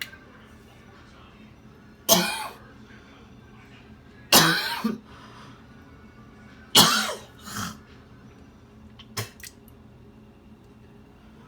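A woman coughing in a fit: three loud, harsh coughs about two to two and a half seconds apart, each trailing into smaller coughs, and a short cough near the end.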